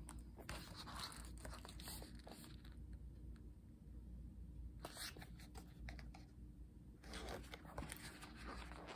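Faint rustling and scraping of a glossy photobook's thick pages being handled and turned, in a few short spells.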